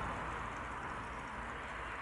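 Steady hiss of a camping gas stove burning under a lidded pan, easing off slightly in level.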